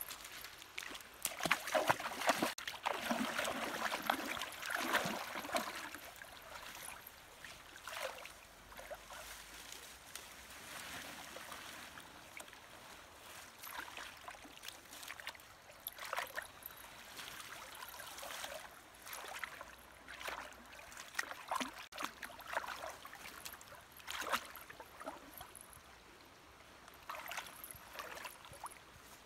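Shallow river water splashing and sloshing as a person wades and works leafy branches and her hands in it, in irregular bursts that are busiest in the first few seconds.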